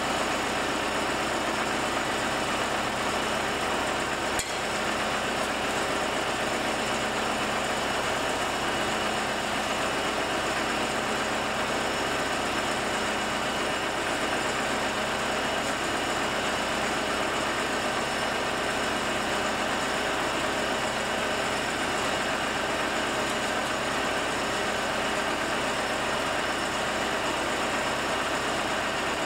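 A motor running steadily: a constant hum and hiss that does not change in pitch or level.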